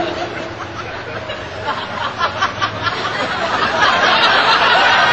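Audience laughter mixed with crowd chatter, swelling about four seconds in.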